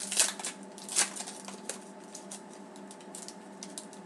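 Foil wrapper of a hockey card pack crinkling as it is opened and the cards are slid out. Two louder crackles come in the first second, followed by lighter, scattered crackling.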